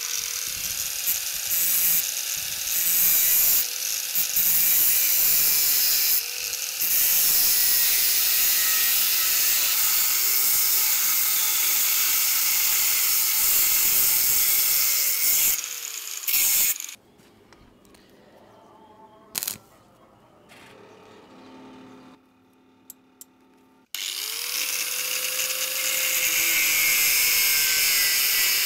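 Electric angle grinder cutting and grinding steel rebar, its motor note dipping and recovering as the disc bites. About 17 seconds in the sound drops away to a quiet stretch, then about 24 seconds in the grinder starts up again and runs against the steel.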